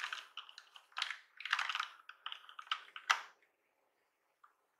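An Asus ROG Falchion compact mechanical keyboard being handled, its keys and plastic case clicking and clattering in quick clusters for about three seconds, then stopping.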